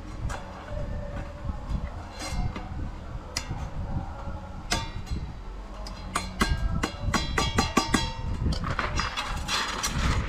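Steel pliers clicking and scraping against the rim of a thin metal scale pan, with a quick run of sharp metallic clicks about six to eight seconds in that leave the pan ringing briefly.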